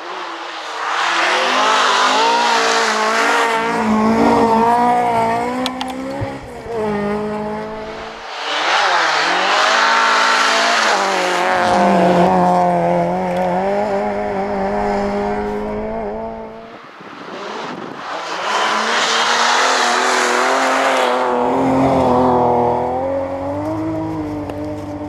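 Three rally cars go by one after another, each engine revving hard, its pitch climbing and dropping through gear changes as it passes: a BMW M3, an Opel Astra GSi 16V with its 16-valve four-cylinder, then another BMW M3.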